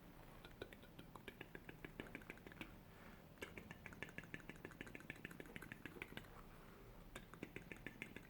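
Close-miked ASMR clicking: quick runs of small, sharp clicks, about five a second, in three bursts with brief pauses between them.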